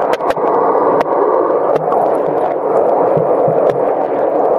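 Muffled, steady rushing of water heard by a camcorder microphone held underwater, with scattered sharp clicks and knocks.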